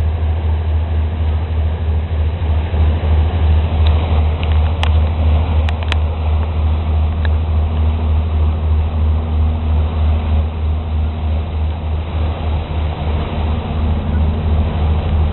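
Inland tanker's diesel engine running at slow speed, a deep steady throb with an even pulse. A few short sharp clicks come about four to six seconds in.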